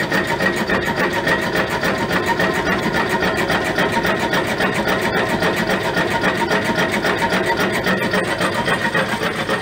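Homemade alpha-type Stirling engine running with a rapid, steady mechanical clatter, its flywheel turning a belt-driven centrifugal water pump.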